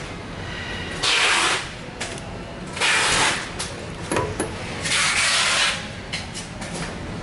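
Handling noise as a 1/10 RC crawler truck is lifted and turned over by hand: three short rushing scrapes, with a few light clicks and knocks in between.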